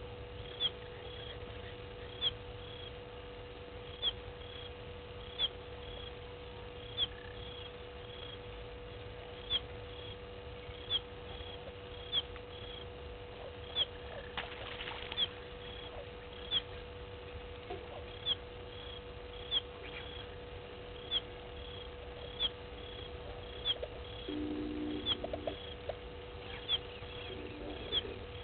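A small unseen animal calls with a sharp, high-pitched chirp that repeats evenly about every one and a half seconds, each chirp answered by a shorter, fainter note, over a steady low hum of ambience. A brief lower-pitched call sounds twice near the end.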